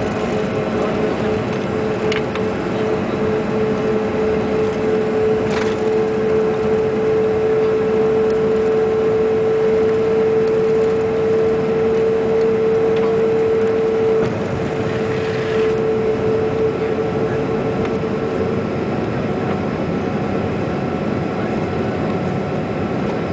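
Inside the cabin of a Bombardier CRJ regional jet on its takeoff roll: its rear-mounted General Electric CF34 turbofans at takeoff thrust make a steady whine that climbs slightly in pitch over a loud rushing roar. About two-thirds of the way through, as the jet climbs away from the runway, the roar eases and the whine fades out.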